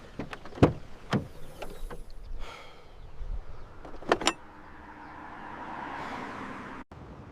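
A ratchet jack wrench being fitted to and worked on a car jack: a handful of scattered clicks and knocks, then a steady whirring that swells for about two seconds and cuts off suddenly near the end.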